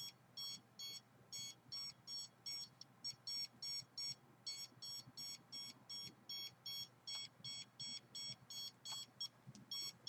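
Rapid electronic beeping from a handheld meter: short high-pitched beeps about three a second, with a few brief pauses.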